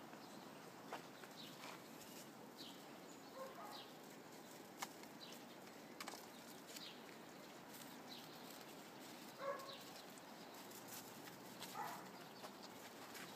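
Faint sounds of puppies playing on snow: a few brief high yips, one about a quarter of the way in and two in the last third, over light scattered scuffs and clicks.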